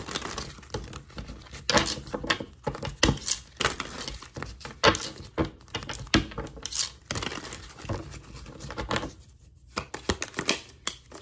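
A tarot deck shuffled by hand: a steady, irregular run of crisp card slaps and flutters as cards drop and are pushed from hand to hand, easing off briefly about nine seconds in.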